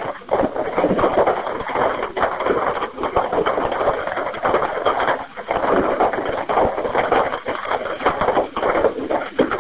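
Continuous crackling, rushing noise over an open telephone line, full of rapid irregular clicks.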